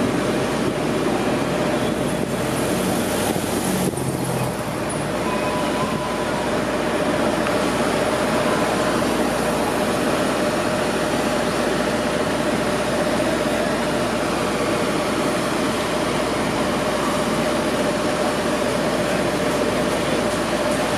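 City street traffic: cars, an SUV and vans driving past through an intersection, a steady wash of road noise with a constant hum underneath.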